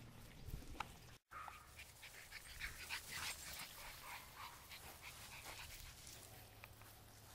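Puppies playing in dry grass: faint puppy whimpers over soft rustling. The sound drops out completely for a moment about a second in.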